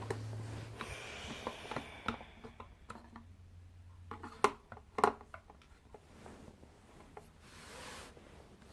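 Panasonic home theatre speaker being handled during disassembly: scattered small clicks and knocks, with two louder knocks about four and a half and five seconds in. A low hum stops within the first second.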